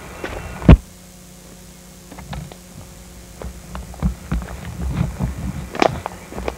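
Footsteps of someone walking on a woodland path, irregular soft thumps from about two seconds in, over a steady low hum. A single sharp knock, the loudest sound, comes under a second in.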